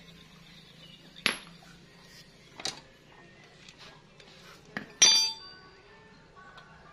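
Metal hand tools clinking against the parts of an opened motorcycle engine during a cam chain replacement: a few separate sharp clinks, the loudest about five seconds in with a brief ring.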